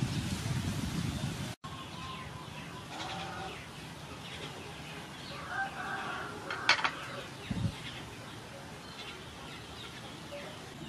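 Hens clucking off and on in the background. A louder rush of noise cuts off abruptly about a second and a half in, and a single sharp knock comes about seven seconds in.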